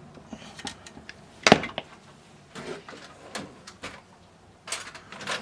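Scattered clicks, taps and scrapes of a screwdriver and small radio parts being worked by hand on a bench, with one sharp louder knock about a second and a half in.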